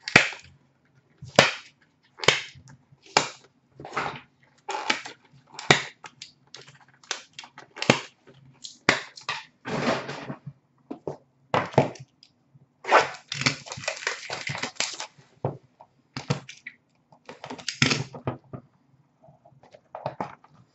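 Trading cards and their paper and plastic packaging being handled: a string of short, crisp swishes and snaps, about one a second, with a longer rustle a little past halfway.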